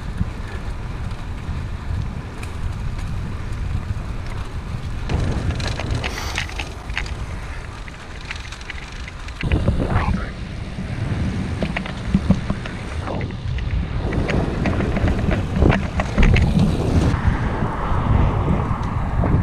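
Wind buffeting the microphone of a camera on a moving bicycle, a steady low rumble with scattered crackles and bumps, growing louder about halfway through.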